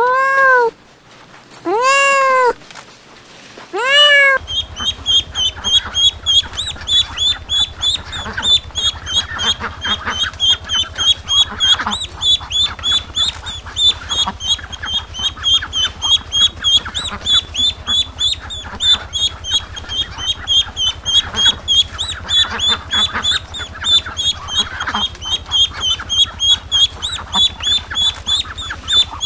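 A black-and-white kitten meows three times. After about four seconds a crowd of yellow domestic ducklings takes over with continuous rapid, high peeping.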